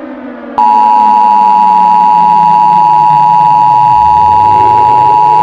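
Emergency Alert System attention signal: a loud, steady two-tone beep that starts about half a second in and holds. Beneath it a lower sound slowly falls in pitch, then begins to rise again.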